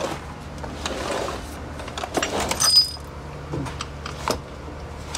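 Old metal-framed sliding glass door being slid along its track, rattling and scraping with several clunks. A short high squeak comes at the loudest moment, about two and a half seconds in.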